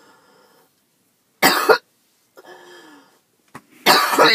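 A woman's harsh asthmatic coughing, a flare brought on by skipped breathing treatments: one short hard cough about a second and a half in, a faint breath in with a slight whistle, then a longer loud coughing fit starting near the end.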